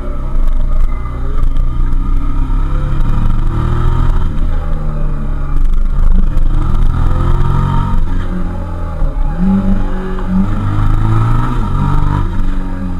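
Suzuki SV650S K3's 650 cc V-twin engine heard from onboard while riding. The engine pitch falls and rises several times as the rider rolls off into bends and opens the throttle out of them.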